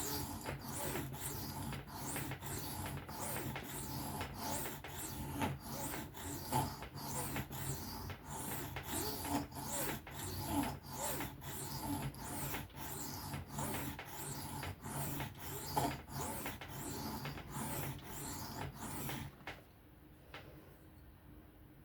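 A steel knife blade stroked freehand back and forth across an Atoma diamond sharpening plate, about two rasping strokes a second. It is a zipper-like sound as the edge runs over the plate's diamond lines. The strokes stop about 19 seconds in.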